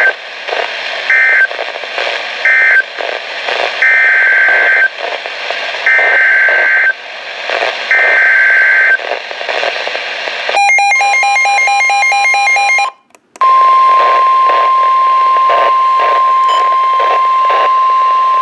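NOAA Weather Radio EAS tones over radio hiss. First come two short SAME end-of-message data bursts, then three SAME header data bursts of about a second each, a second apart. After a brief burst of mixed electronic tones and a moment of silence, the steady 1050 Hz weather radio attention tone starts about 13 seconds in and holds.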